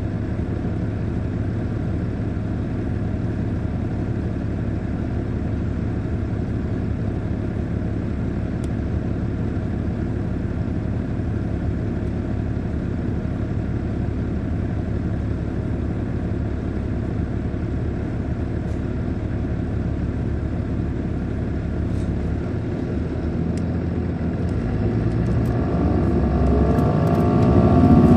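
2006 MCI D4500CL coach's Caterpillar C13 ACERT diesel engine running steadily at a constant pitch. About 25 seconds in it speeds up, the pitch rising and the sound growing louder as the bus accelerates.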